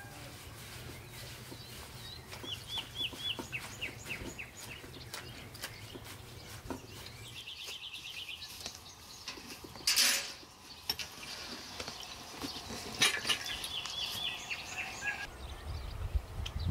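Birds calling in short runs of quickly repeated high notes, over soft clicks and rustles of hands working rose petals in metal bowls, with one sharp clink about ten seconds in.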